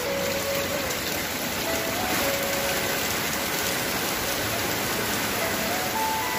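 Heavy typhoon rain pouring down steadily, an even dense hiss of rain on the ground and roofs.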